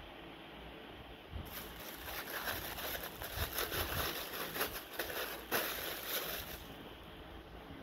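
Clear plastic bag crinkling and rustling as it is handled, starting about a second and a half in and lasting about five seconds.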